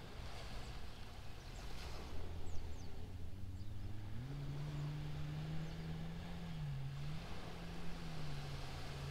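A motor engine running steadily out of sight, its hum stepping up in pitch about four seconds in and dipping briefly near the end, over a steady hiss of light surf and wind.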